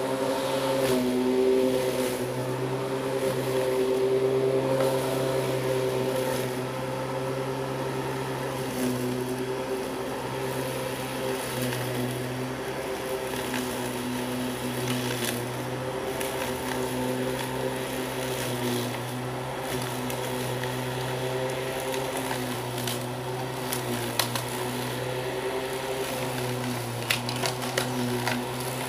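Corded electric lawn mower running steadily as it is pushed through grass, its motor hum wavering a little with the load, with a few sharp ticks near the end.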